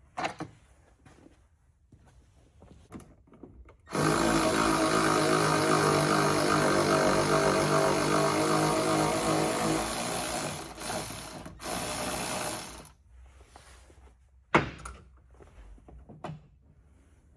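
Power driver with a T40 Torx bit spinning a loose bolt out, a steady motor whine for about six seconds starting about four seconds in, then a shorter second run. A single sharp click follows a little later.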